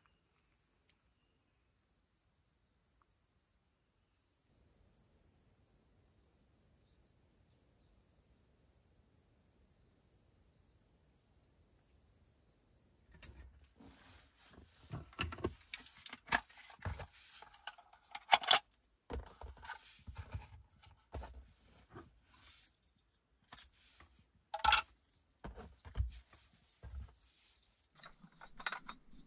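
Night insects chirping in a steady high chorus for about the first half. Then the chorus gives way to irregular clicks, taps and clatter of small camping gear being handled and set down, with two louder knocks in the second half.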